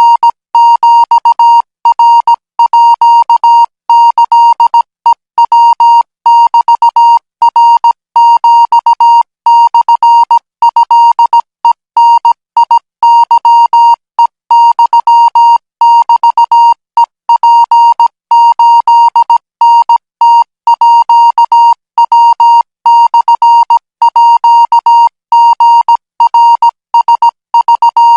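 Morse code practice signal: a single steady beep tone keyed on and off in short and long elements, sent at 20 words per minute.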